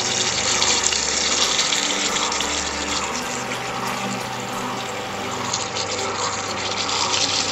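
Mutton curry simmering in a pan: a steady, watery bubbling hiss.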